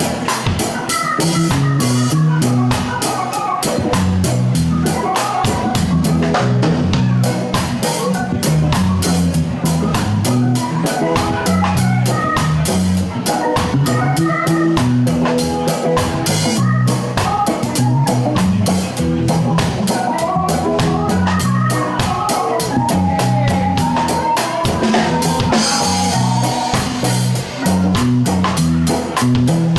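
Live band playing an instrumental passage: a drum kit keeps a steady beat with rimshots, under a moving bass line and guitar.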